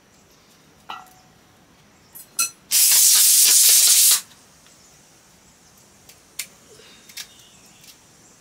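Pressure cooker on a wood fire letting off a loud burst of hissing steam for about a second and a half, starting and cutting off abruptly. A few light clinks of utensils before and after.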